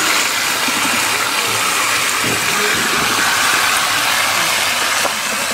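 Water gushing steadily from an outlet under a plastic grate and spraying into a shallow rocky pool, a continuous loud rushing hiss.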